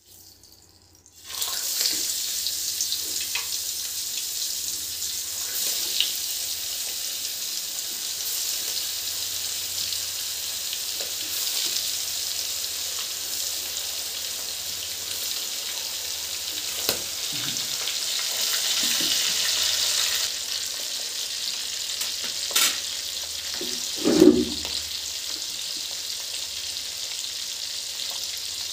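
Spice-coated eel pieces sizzling loudly as they deep-fry in hot oil in an aluminium kadai. The sizzle starts suddenly about a second in, as the fish goes into the oil, and holds steady, with a few light knocks along the way.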